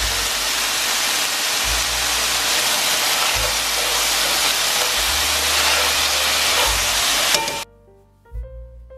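Peppers and onions sizzling loudly as they stir-fry in a hot cast iron skillet, over background music with a steady bass line. The sizzle cuts off suddenly near the end, leaving only quieter music.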